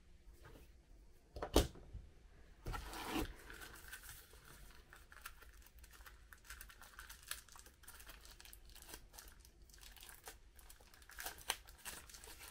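Plastic packaging bag crinkling and rustling as it is handled and opened, with scattered small crackles. A single sharp knock about a second and a half in is the loudest sound.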